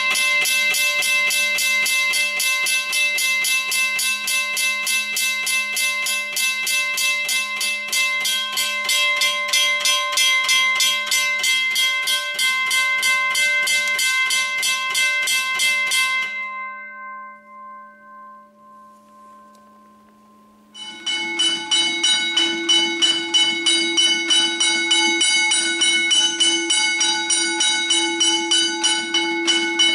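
Electric railway level crossing bells struck rapidly by their strikers, run from a DC supply at around 11 volts, a voltage that makes them ring fast. About 16 seconds in the power is cut and the gong rings on and fades away. About 21 seconds in a different bell with a lower tone starts up, striking rapidly.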